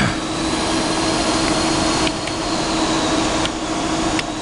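Powered-on CNC milling machine giving a steady mechanical hum with a constant low tone and a faint high whine that swells and fades, broken by a few faint clicks.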